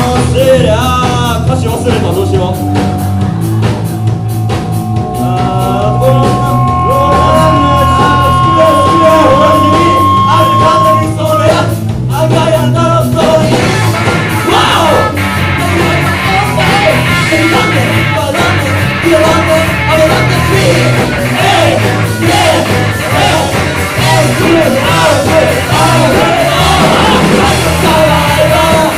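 Live rock band playing a song with singing, drums and bass, with long held notes from about four to eleven seconds in.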